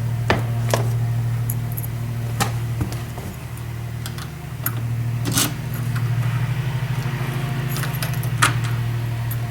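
A door key jangling on its ring and clicking as it is put into the deadbolt and tried, with a few sharp metallic clicks spread through. A steady low hum runs underneath.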